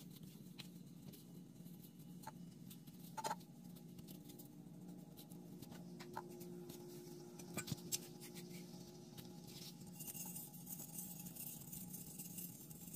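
Fine steel wool being pulled apart and handled: a faint scratchy rustle with a few sharp clicks, over a steady low hum. Near the end the rustle turns brighter and hissier.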